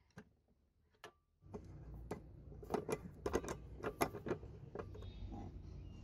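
A socket wrench working the rusty set bolt out of a juicer press's cast base: a couple of separate clicks, then from about a second and a half in a run of irregular metallic clicks and ticks. A low steady rumble starts at the same time.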